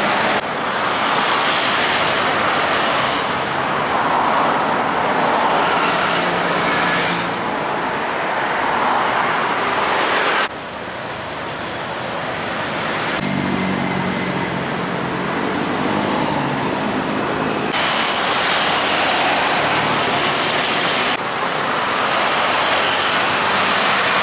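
Steady noise of road traffic, in several takes that cut in and out abruptly, with a low engine hum standing out for a few seconds past the middle.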